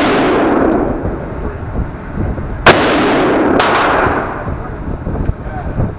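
Two gunshots about a second apart, each followed by a long ringing echo in the indoor shooting range. The echo of a shot fired just before them fades out in the first second.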